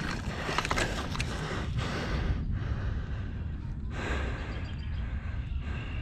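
A person breathing hard in noisy rushes close to the microphone, with wind rumbling on the mic throughout.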